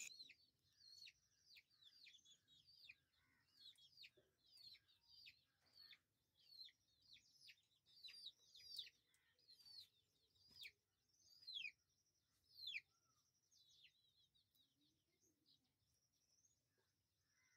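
Faint, quick bird chirps, each a short high note dropping in pitch, repeating about one to two a second and dying away after about thirteen seconds. A faint steady high insect trill runs beneath near the start and again near the end.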